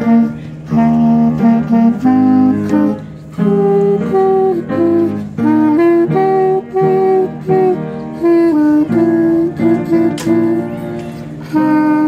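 Clarinet playing a melody of short and held notes, in phrases broken by brief gaps.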